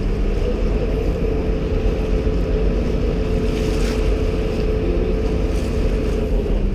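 Passenger water bus engine running steadily under way, a constant hum over the rush of water along the hull, with wind on the microphone.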